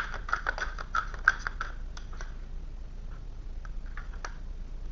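Tarot cards being handled on a table: a run of light, quick clicks and taps, thickest in the first two seconds and then a few scattered ones, over a steady low hum.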